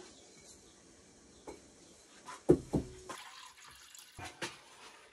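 Water running with a faint hiss, broken by two knocks a little past halfway and a few lighter clicks.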